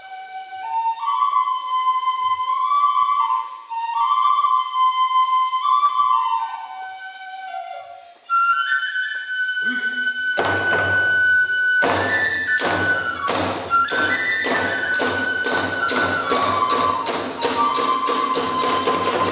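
Kagura music: a bamboo flute plays a melody alone, then about ten seconds in a drum roll and regular percussion strikes join under the flute, the beat quickening toward the end.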